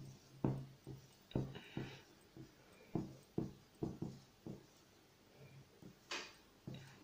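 Felt-tip marker writing letters on a board: a string of about a dozen short, faint taps and strokes, roughly two a second, with one brighter scratchy stroke near the end.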